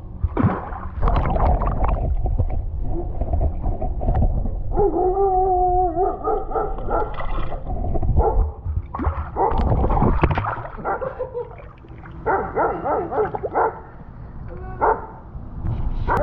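A dog whining and yelping in short pitched calls, one held whine about five seconds in and a run of choppy yelps near the end, over a low rumble that fades out about ten seconds in.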